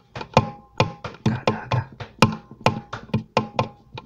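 Nylon-string acoustic guitar playing a bossa nova rhythm on an A minor seventh chord. The index, middle and ring fingers pluck the D, G and B strings, together on beats one and three and one after another on beats two and four, with no bass notes. The strokes are quick and crisp, about four or five a second, each chord ringing briefly.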